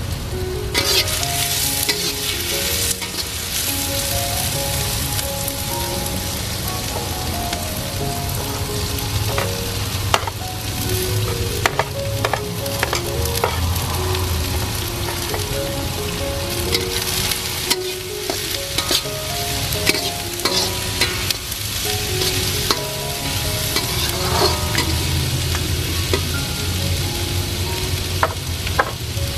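Diced vegetables sizzling as they stir-fry in a hot oiled wok, with a steady hiss. A spatula scrapes and clicks against the wok now and then.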